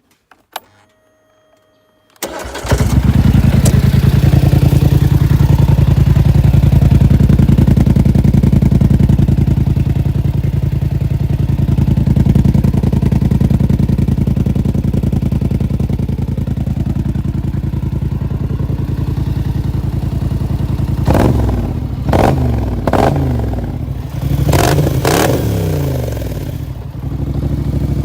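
Polaris Sportsman 850 ATV's parallel-twin engine, fitted with a Big Gun EXO slip-on exhaust, starts about two seconds in and idles very loud and steady. Near the end it is revved in several quick blips, then drops back to idle.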